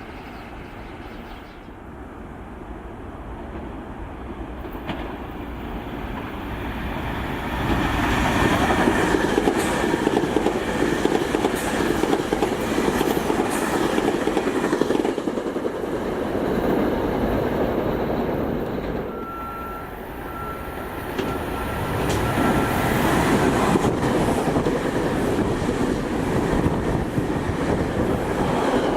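SEPTA Regional Rail electric train passing, its wheel and rail noise growing much louder about eight seconds in. The noise eases briefly about two-thirds of the way through, then rises again.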